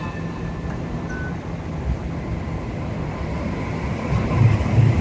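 Hong Kong Light Rail Phase 1 light rail vehicle approaching and passing close by: a steady low rumble of steel wheels on the rails, with heavier low thumps in the last second as the cars go past.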